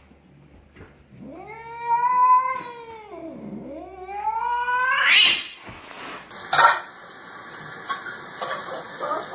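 A black domestic cat giving one long, drawn-out yowl of about four seconds: it rises, holds, sags low in pitch midway, then climbs to a high wail at the end. A sharp click follows shortly after.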